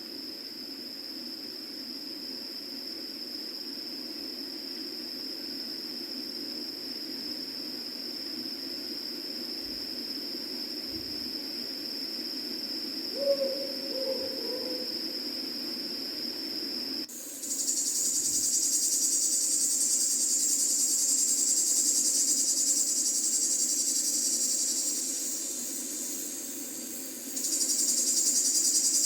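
Night-time outdoor ambience: a steady high insect trill, with one short owl hoot about 13 seconds in. At about 17 seconds the insect sound changes abruptly to a louder, higher chirring of crickets, which drops away for a moment near the end and then comes back.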